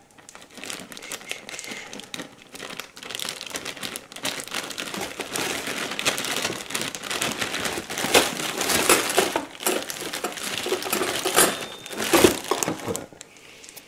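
Plastic bag of frozen peas crinkling and rustling as it is handled, with louder crackles about eight seconds in and near the end.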